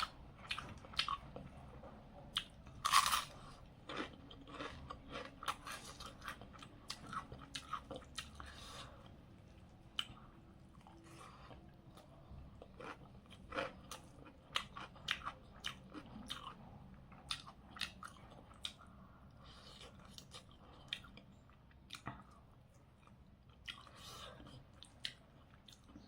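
A person chewing crunchy food close to the microphone, with many short, irregular crunches and bites; the loudest crunch comes about three seconds in.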